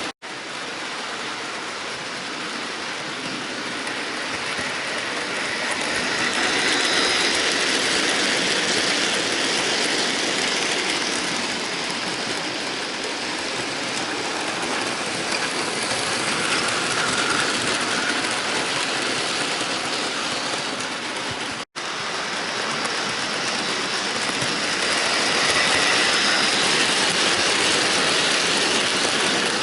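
Bachmann OO gauge model train running on the layout track: the locomotive's small electric motor and gears whir while the wheels clatter over the rails in a steady rattling hiss that swells and fades. The sound cuts out for an instant just after the start and again about 22 seconds in.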